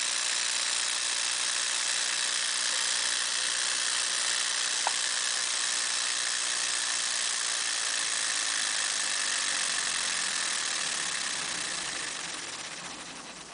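Miniature two-cylinder opposed air engine running fast on compressed air: a steady, mostly high-pitched hissing whirr of air exhausting from the cylinders and the small flywheel spinning. It fades away over the last second or so.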